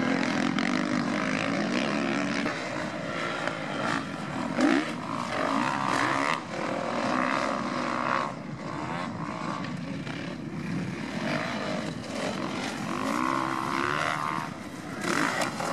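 Motocross bike engines revving hard, the pitch climbing and dropping again and again as the riders work through the gears.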